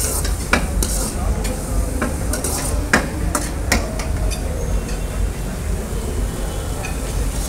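Rice noodles sizzling as they are stir-fried in a wok, a metal ladle or spatula scraping and clinking against the pan. The clinks come every second or so in the first half and thin out after that.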